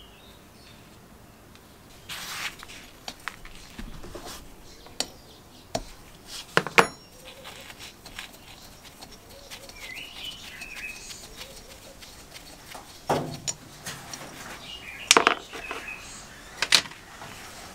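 Metal parts of a vintage air compressor being handled by hand: scattered clinks and knocks of the cast pulley and housing, loudest in a quick cluster a little before the middle and again twice near the end.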